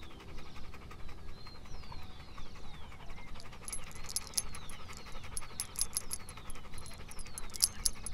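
Dogs panting fast and evenly, with thin, high, falling chirps above the panting.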